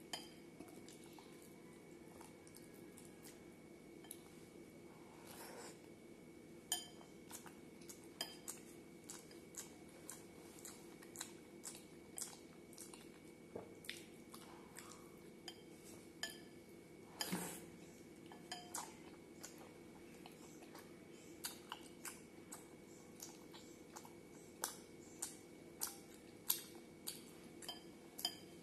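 A hand scooping milk-soaked bread in a glass bowl, with frequent light clicks of fingers against the glass and a louder knock a little past halfway, along with soft wet chewing.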